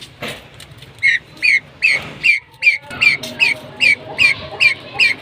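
A bird calling over and over: a sharp, falling note repeated about two and a half times a second, starting about a second in.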